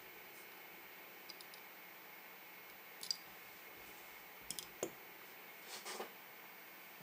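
Scattered light clicks and taps of a precision screwdriver and the opened Fitbit Charge 3 being handled on a work mat, in four small clusters, over a faint steady high whine.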